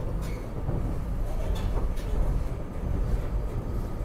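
SEPTA Regional Rail electric train in motion, heard from inside the passenger car: a steady low running rumble of wheels on the rails, with a few faint clicks.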